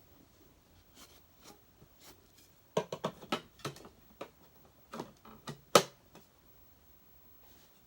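A quick run of sharp clicks and knocks of hard plastic vacuum cleaner parts being handled and fitted together, bunched about three to six seconds in, the loudest knock near the end of the run.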